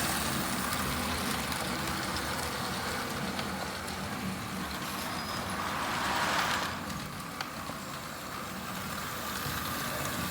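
Postwar toy electric train running on its track: a steady rumble of the motor and wheels, swelling for a moment about six seconds in.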